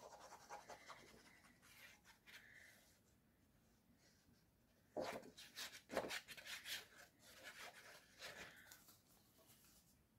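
Faint, broken rustling and rubbing of a sheet of paper being handled and slid over a cutting mat, in two spells: the first few seconds, then again from about five seconds in.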